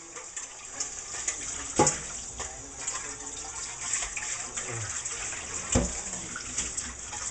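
Kitchen faucet running into a metal mixing bowl as it is rinsed out in the sink, with the water splashing steadily. The bowl knocks against the sink twice, about two seconds in and near the end.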